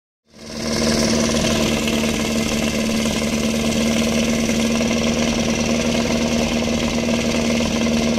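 Portable fire pump engine idling steadily, with a steady low pitch and a rough running note, waiting for the start of a fire-attack run.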